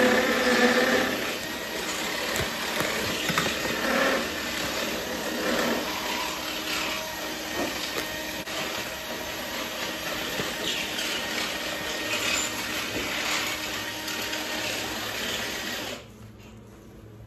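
Electric drill boring into the wall, running steadily under load for a long stretch and stopping suddenly near the end.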